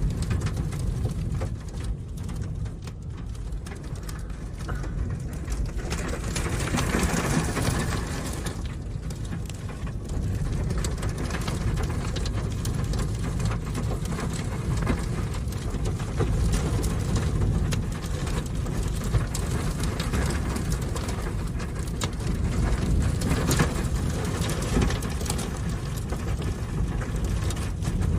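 Extreme gusting wind buffeting a storm chaser's vehicle, a heavy low rumble of wind on the microphone, with wind-blown dust and debris striking the vehicle in many small rapid hits. The wind swells louder about seven seconds in and again near the end.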